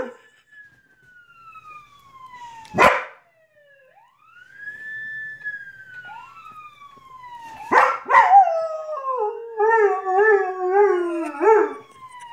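A siren wails in long slow glides, mostly falling in pitch, while a white German Shepherd howls along with it: a sharp bark about three seconds in, then another bark and a wavering howl lasting about four seconds.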